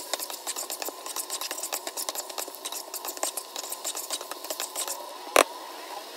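A spatula stirring and scraping beef chunks and onion masala around a nonstick wok during sautéing: a rapid, uneven run of scrapes and clicks against the pan, which stops about five seconds in, followed by a single loud knock.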